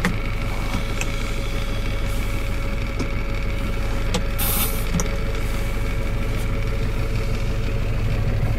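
GAZ Valdai truck's diesel engine idling steadily, heard from inside the cab. A few light clicks and a brief rustle come about four and a half seconds in.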